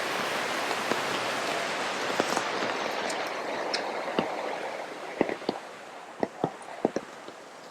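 Steady rain hiss with scattered drips tapping, easing off after about four seconds.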